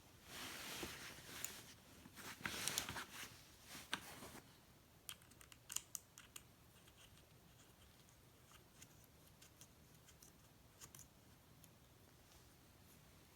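Metal scraping and clicking as a Sig Sauer Romeo5 red dot sight's clamp is fitted onto the rail of an AR upper receiver, for about the first four seconds, followed by a few faint small clicks.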